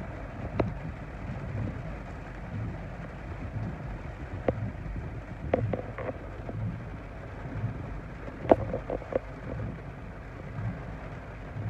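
Heavy rain on a car's windshield and roof, heard from inside the car, with the windshield wipers sweeping about once a second. A few sharp knocks stand out, the loudest about eight and a half seconds in.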